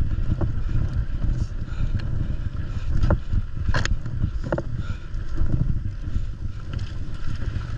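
Wind buffeting an action camera's microphone during a mountain bike descent, a constant low rumble that rises and falls. Scattered short clicks and brief squeaks come from the bike, most of them in the first half.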